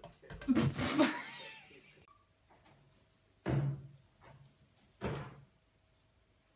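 Knocks and thumps: a loud clattering knock about half a second in, then two single sharp thumps about a second and a half apart.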